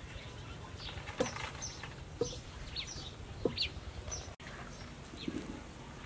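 Farmyard chickens clucking in short calls, with small birds chirping high and thin.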